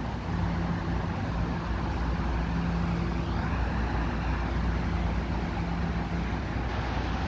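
Steady low hum with a held tone from an EXO commuter train of Bombardier multilevel coaches standing at the station, its locomotive and coach equipment running.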